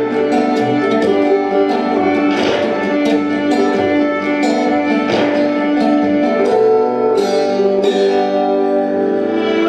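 Instrumental music: plucked string notes over long held tones.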